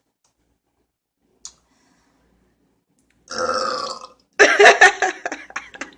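A person burping twice. The first burp comes about three seconds in; the second follows straight after and is louder, longer and choppy.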